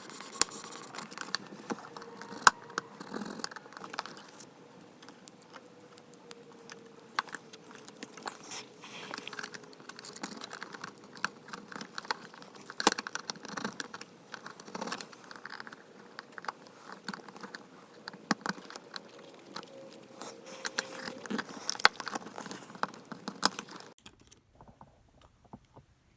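Irregular small clicks, taps and scraping of hand tools working inside an opened smartphone, stopping a couple of seconds before the end.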